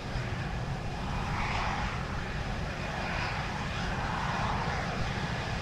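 Aircraft engines running on a carrier flight deck: a steady, noisy rumble with a higher hiss that swells and fades about every second and a half.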